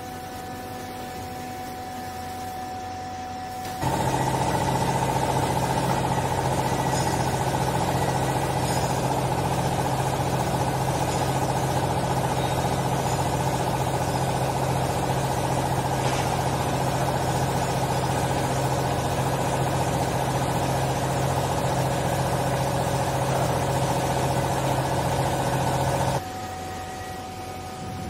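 Vertical hydraulic clothing baler's electric motor and hydraulic pump running steadily through a press cycle. It starts abruptly about four seconds in, with a strong low hum, and cuts off suddenly a couple of seconds before the end. A quieter steady hum is there before and after.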